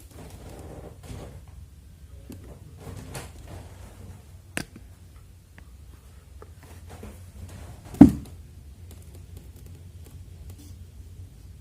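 Low steady hum of a Sharp AH-AP12MHL air conditioner running in clean mode, with a sharp click about four and a half seconds in and a loud thump about eight seconds in.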